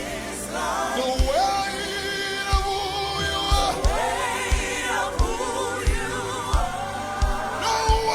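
Live gospel worship music: voices singing long held lines over a band with a steady kick-drum beat.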